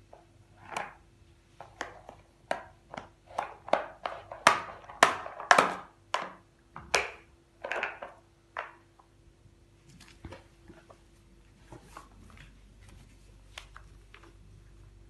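Plastic lint brush rubbed back and forth over a rug: a run of short scraping strokes, about two a second, loudest a little past the middle, then only a few faint taps.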